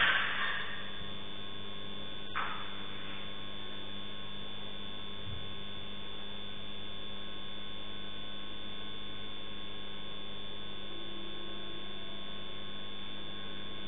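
Steady electrical mains hum on a CCTV camera's audio. A loud animal cry fades out at the very start, and one brief faint sound comes about two seconds in.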